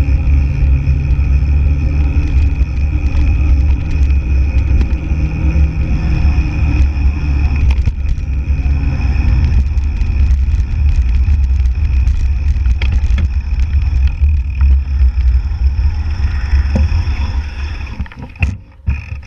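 Steady low rumble of a mountain bike rolling over a rough village road, picked up through a handlebar-mounted action camera, with scattered small rattles and clicks. About 18 seconds in it dies away sharply, with a few knocks.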